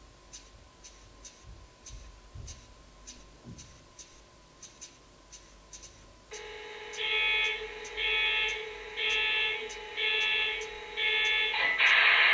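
HO-scale MTH SD70ACE model locomotive's onboard sound system running a diesel start-up sequence. It begins with faint clicking, then a steady electronic tone with five alarm-like beeps about a second apart. Near the end a loud, steady rushing noise sets in.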